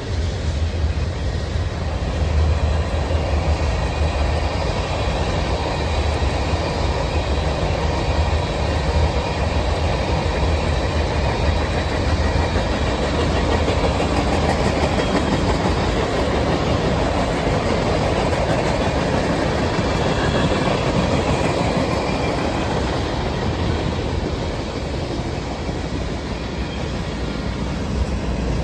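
Freight cars of a long mixed train (autoracks, tank cars and covered hoppers) rolling steadily past: a continuous deep rumble with the clatter of steel wheels over the rail joints.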